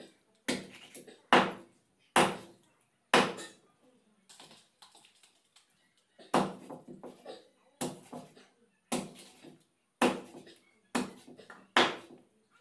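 Large knife chopping a pomfret into steaks on a wooden chopping block: a run of sharp chops about one a second, with a short pause midway.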